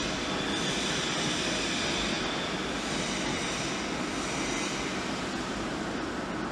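Vertical lathe turning a large cast bell while its cutting tool machines the inside of the bell to tune it: a steady mechanical running noise with faint high tones and no sudden knocks.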